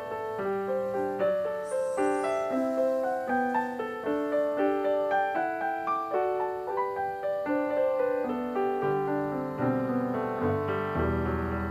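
Background piano music: a steady stream of melody notes and chords, with deeper bass notes coming in near the end.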